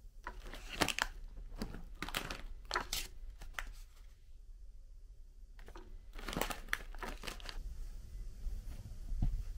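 Irregular rustling and crinkling handling noise: a string of short rustles, a pause of about a second and a half near the middle, then another cluster.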